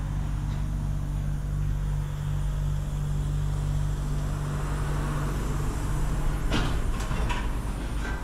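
A vehicle engine idling steadily, with a few light clicks about six and a half to seven and a half seconds in.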